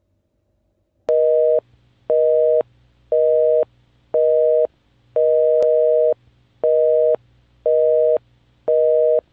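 Telephone busy signal: two steady tones sounding together in loud beeps about once a second, starting about a second in, with one longer beep in the middle.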